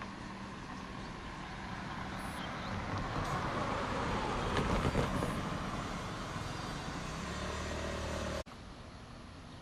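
A motor vehicle passing close by: a rising rush of engine and tyre noise that peaks about five seconds in and then eases off, with a low engine hum before the sound cuts off abruptly near the end.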